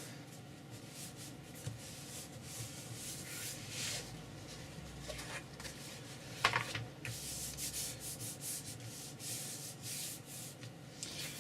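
Irregular rubbing and scraping of card boards being handled and fitted, in short uneven strokes, with one louder scrape a little after halfway.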